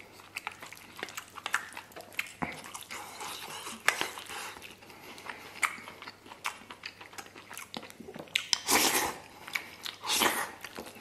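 Close-up mouth sounds of eating soft, saucy tomato-stewed beef brisket and rice: wet chewing and lip smacks with many small clicks, then two louder noisy bites as a spoonful goes into the mouth near the end.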